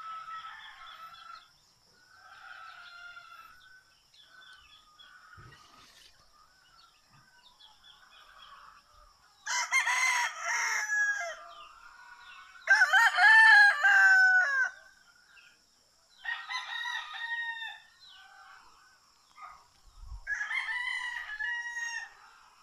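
Rooster crowing: four loud cock-a-doodle-doos in the second half, each about two seconds long and a few seconds apart, with fainter calls in the first few seconds.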